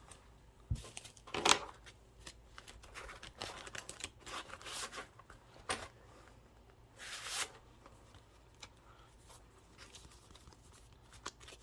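Cards being slid into and shifted around in the slots of a fabric wallet: a few short scraping, rustling sounds with small clicks in between, the loudest about a second and a half in.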